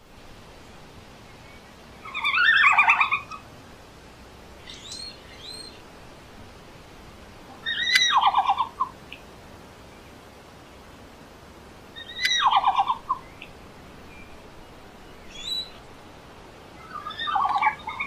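Red panda calling: four high-pitched chirping calls, each about a second long and a few seconds apart, with fainter short chirps between them.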